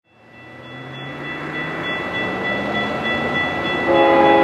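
Doublestack freight train's diesel locomotive approaching, fading in from silence: an engine drone under steady high ringing tones. The locomotive's horn comes in as a chord near the end.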